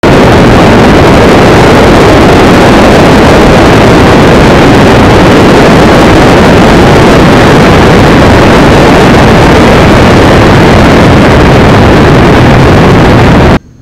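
Bass boat running fast across open water: a loud, steady rush of wind on the microphone mixed with the outboard motor and water noise. It cuts off suddenly near the end.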